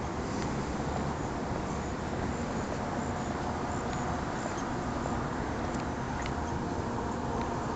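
Steady rustling and handling noise from walking with a hand-held camera, the habit's fabric brushing past it, with a few faint, short high chirps in the first half.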